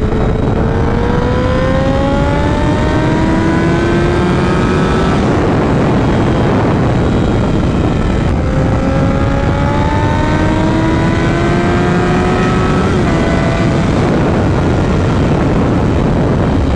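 Honda CBR1000RR's inline-four engine accelerating in two long pulls, each rising steadily in pitch for about four to five seconds before easing off, the second ending about 13 seconds in. Heavy wind noise runs under the engine throughout.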